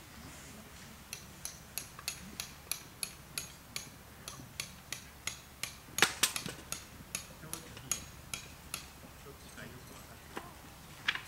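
Tent pegs being hammered into the ground, a steady run of sharp metallic taps about three a second, with a few louder strikes about six seconds in and one more near the end.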